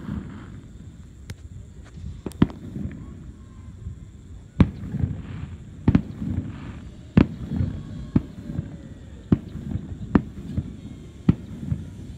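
Aerial fireworks shells bursting at a distance: a string of sharp bangs, about one every second or so, with a low rolling rumble between them.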